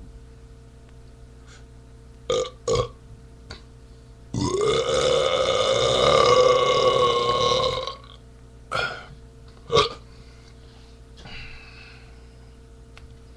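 A man's long, loud belch, lasting about three and a half seconds, brought up by drinking beer. Two brief sounds come a couple of seconds before it and two more just after.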